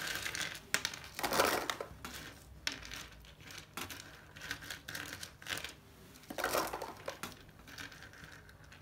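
Plastic parts of a disassembled mechanical keyboard being handled: irregular clicks, clatter and rustling, louder about a second and a half in and again near six and a half seconds.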